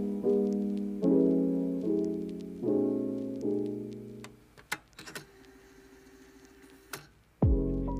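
Background piano music. A run of struck chords, each ringing and fading, gives way a little over halfway in to a few seconds of quiet with a faint held note. A loud chord with deep bass comes in near the end.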